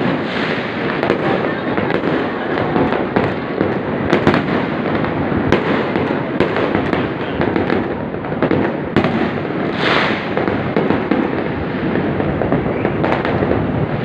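Many fireworks and firecrackers going off across a city at once: a dense, unbroken crackle of pops and bangs, with one louder burst about ten seconds in.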